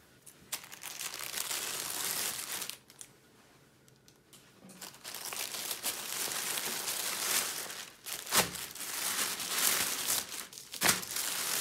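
A plastic poly mailing bag crinkling and rustling as it is opened and bubble-padded packets are pulled out. A short burst of crinkling comes at the start, then a pause. From about five seconds in, the crinkling runs on with a couple of sharper crackles.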